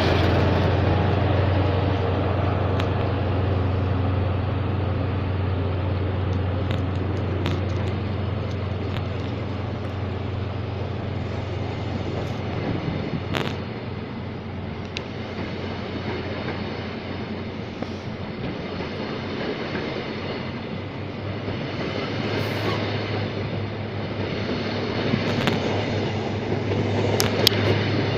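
High Speed Train departing with Class 43 diesel power cars, their engines giving a steady low drone. The sound eases off towards the middle and builds again near the end as the rear power car comes past.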